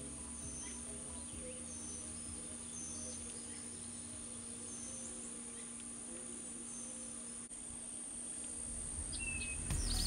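Field ambience: a steady high-pitched insect drone with a songbird giving short chirps about once a second. Louder sounds come in near the end.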